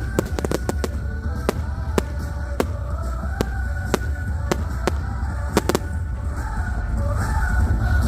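Fireworks going off in sharp, irregular cracks and bangs, about two or three a second, with a quick cluster a little over halfway through. Music plays underneath, along with a steady low rumble.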